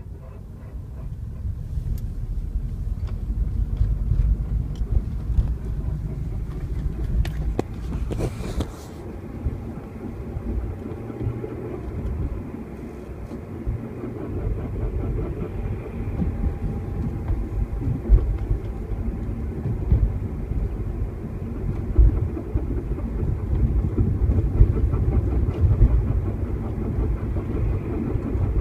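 A car driving, with a steady low rumble from the road and running gear and a few sharp knocks. This is the odd noise the owner is trying to capture, which usually comes when turning right.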